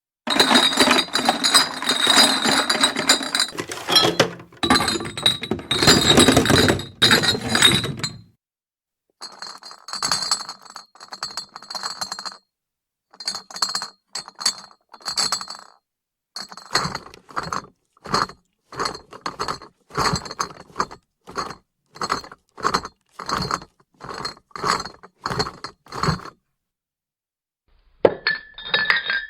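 Empty glass beer bottles clinking and rattling against each other inside a cardboard beer case as it is shaken. The first eight seconds are one long, dense clatter. Two shorter shakes follow. From about sixteen seconds there is a run of quick separate jolts, roughly one and a half a second.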